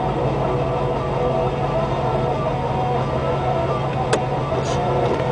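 A car's engine and road noise heard from inside the cabin while driving slowly: a steady low hum with no change in pace. A single sharp click about four seconds in.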